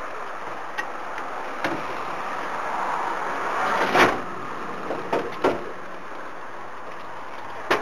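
A passenger van's sliding side door rolling shut and slamming about four seconds in, followed by a few lighter knocks, over steady cabin noise.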